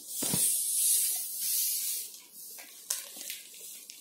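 Detergent powder and salt poured from plastic packets into a plastic basin: a hiss of falling grains, loudest for the first two seconds, then fainter with a few light ticks.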